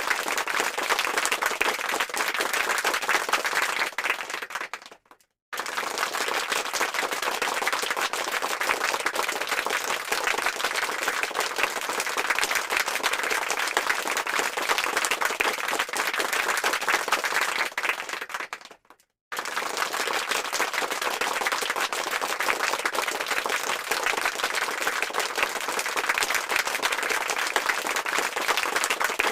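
Applause sound effect: a crowd clapping densely and steadily. It fades and drops out briefly twice, about five seconds in and again near 19 seconds, each time restarting abruptly as the loop repeats.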